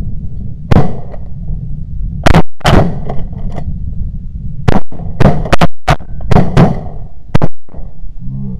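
A volley of shotgun blasts from several hunters firing at snow geese, about a dozen loud shots coming unevenly, some in quick pairs. Wind rumbles on the microphone throughout.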